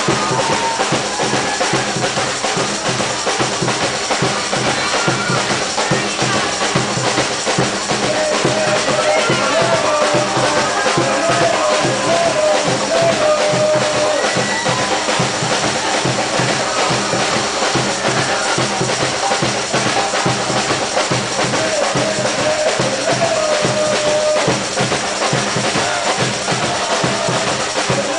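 Batucada percussion band playing live: dense, driving drumming with a steady beat and deep bass drums, with a wavering melodic line over it in the middle.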